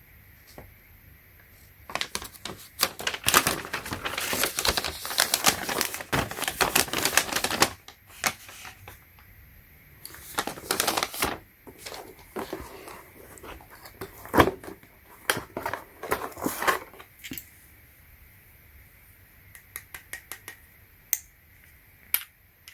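Packaging being handled and unpacked by hand: rapid crackling and clicking in two long stretches, then a few separate clicks near the end.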